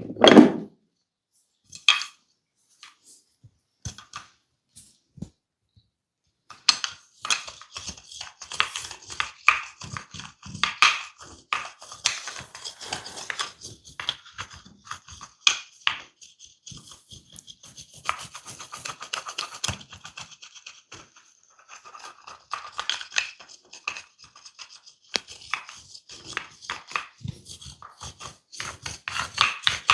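Fingers scratching and rubbing through hair on a scalp: a dense, close crackling rustle that starts about six seconds in and runs on with brief pauses. It opens with one loud slap and a few scattered taps.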